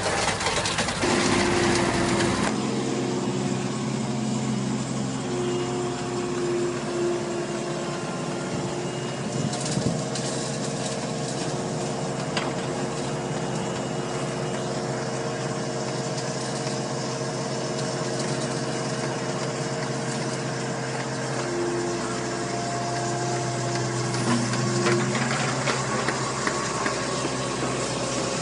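Steady running hum of job-site machinery: a rubble belt conveyor and an excavator's engine, with several held tones and a strong low drone. A few short knocks are heard, and the sound changes abruptly about two seconds in.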